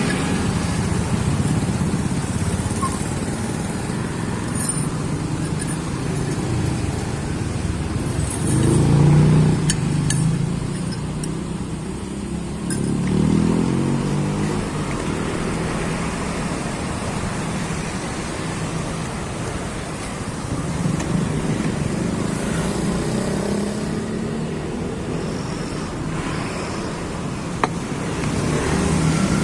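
Street traffic: continuous engine noise with several vehicles passing close by one after another, the loudest about nine seconds in.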